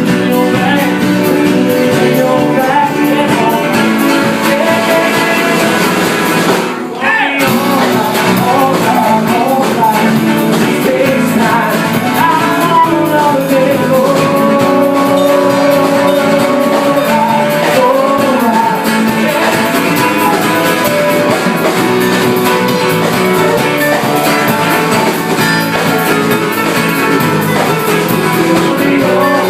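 Live band playing an instrumental stretch with guitar, a wavering lead melody over steady accompaniment; the sound drops out briefly about seven seconds in.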